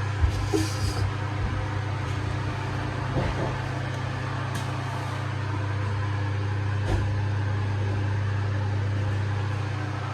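Iris Ohyama CDK842-W drum washing machine running: a steady low hum with a few short knocks.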